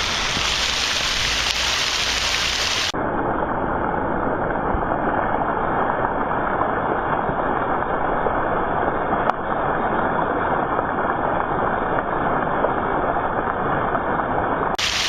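Water of an artificial waterfall rushing steadily down its cascade. From about three seconds in until near the end it sounds duller, its highs cut off.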